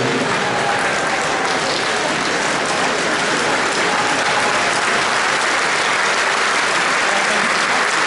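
Crowd applauding steadily, an even continuous wash of clapping.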